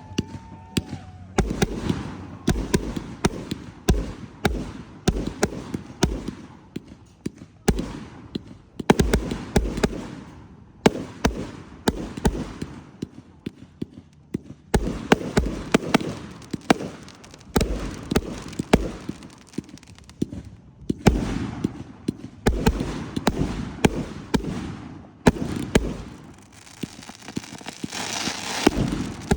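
Fireworks display going off in a rapid, unbroken barrage of sharp cracks and deep booms. A hissing crackle comes in near the end.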